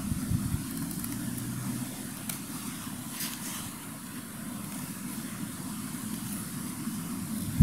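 Camillus Trekus Pro folding knife shaving a wooden stick, with a few faint scraping strokes, under a steady low rumble of wind on the microphone.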